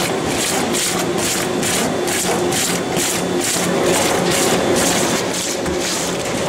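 Industrial pineapple crushing and juice-pressing machinery running steadily: a motor hum under a regular hissing pulse about four times a second.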